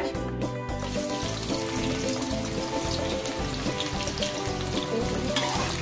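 Sliced red onions dropped into hot oil in a kadai, sizzling as they fry; the sizzle sets in about a second in and holds steady.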